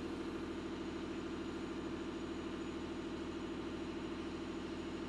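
Steady low machine hum with a fast, even flutter, like a motor running; no voice.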